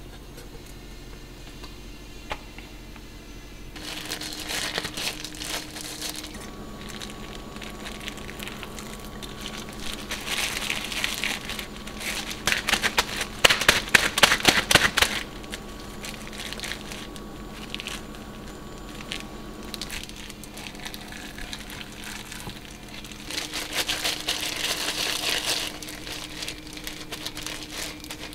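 Gloved hands working raw ground meat: disposable plastic gloves crinkle in several bursts. About halfway through, the meat is tossed back and forth between cupped hands, giving a run of rapid wet slaps, the loudest part.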